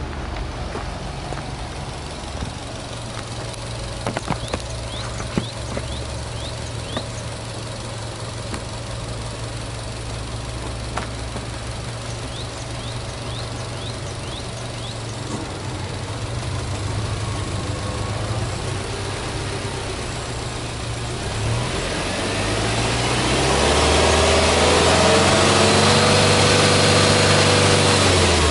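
Subaru Legacy B4 2.0GT spec.B's turbocharged 2.0-litre flat-four boxer engine idling steadily. About 21 seconds in it is revved up, held at high revs for several seconds, and falls back right at the end.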